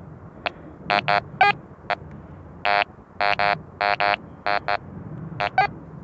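Metal detector giving a string of about fourteen short electronic beeps of differing pitch as its search coil is swept over a freshly dug hole. The tone reads strongly ferrous, the sign of an iron target: here a badly rusted bottle cap.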